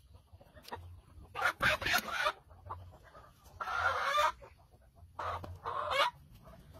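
Chicken squawking in three loud bursts, each under a second long, about a second and a half apart.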